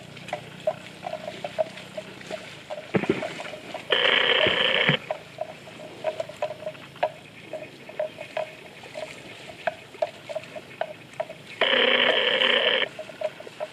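Water buffalo cropping and chewing wet grass: soft, irregular crunching clicks, broken twice by a loud steady ringing about a second long, about four and twelve seconds in.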